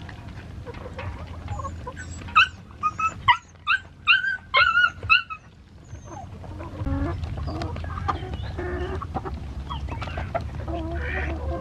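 Chickens, ducks and dogs feeding together from baskets. About two seconds in comes a quick run of roughly eight loud, sharp, high-pitched calls lasting about three seconds. Softer clucking and pecking follow.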